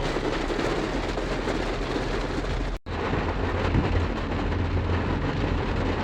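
Heavy rain falling on a moving car, heard from inside the cabin as a steady hiss over the low rumble of the car and road. The sound cuts out for an instant about three seconds in.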